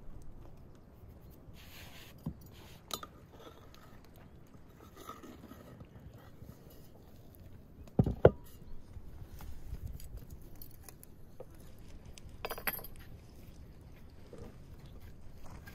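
Hand work with dough and kitchenware: small clinks and taps of bowls and utensils, and two heavy thumps in quick succession about halfway through as a mass of dough is lifted and slapped back into an enamel basin.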